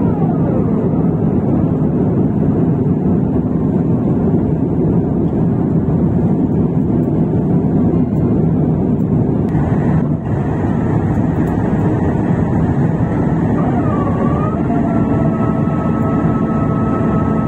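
Steady roar inside the cabin of an Airbus A350-1000 in flight: its Rolls-Royce Trent XWB engines and the rushing air, heard from a window seat over the wing. A higher whine drops in pitch at the start and again near the end.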